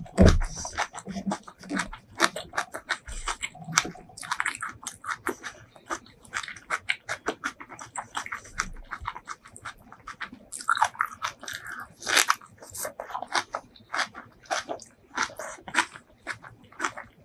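Close-miked chewing of a mouthful of food, with quick wet, smacking clicks several times a second.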